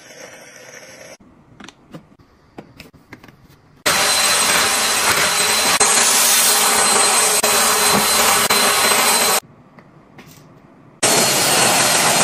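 Vacuum cleaner motor running: a loud rushing noise with a thin high whine. It starts about four seconds in, cuts off about nine seconds in and starts again near the end, after a few faint clicks and taps.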